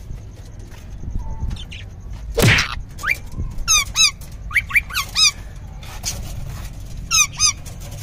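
Caged parakeets squabbling, rose-ringed parakeets attacking budgerigars: clusters of short, sharp chirps that rise and fall, from about three to five seconds in and again near seven seconds, with one louder harsh cry about two and a half seconds in.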